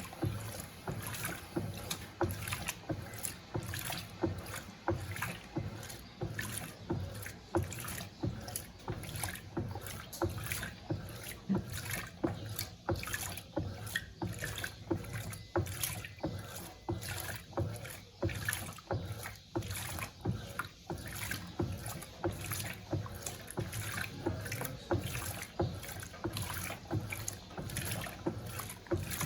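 Electrolux Turbo Compacta LTC07 top-loading washing machine agitating a load of towels in water during a pre-wash: rhythmic sloshing and swishing, somewhat under two strokes a second, over a low motor hum.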